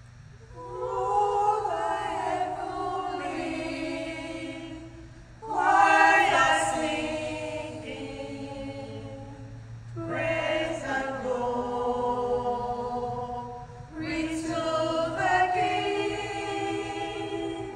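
Church choir singing a carol in four long, held phrases, each starting strongly and fading away before the next.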